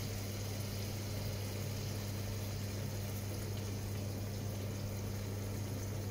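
Sauce cooking in a pan on the hob, a soft even sizzle and bubble, over a steady low hum from a kitchen appliance.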